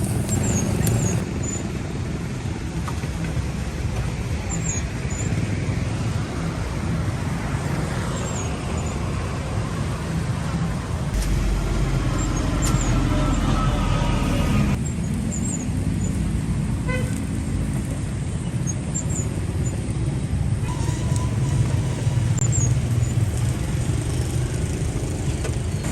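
Steady road traffic noise, with vehicle engines rumbling continuously.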